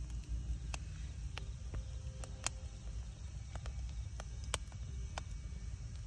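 Wood fire crackling: scattered sharp pops, about nine of them, the loudest two near the middle and about three quarters through, over a steady low rumble.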